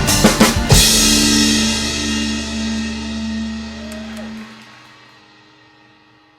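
Drum kit playing the final hits of a rock song over its backing track in the first second. The last chord and cymbals then ring on, the held note cuts off about four and a half seconds in, and the rest fades away.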